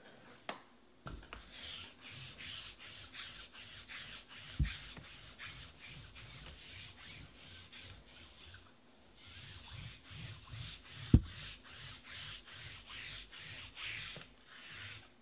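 Trading cards being slid one past another in the hands as a pack is gone through: a steady run of quick, dry swishes, about three a second. They pause briefly near nine seconds in, and a single sharp knock on the table comes about eleven seconds in.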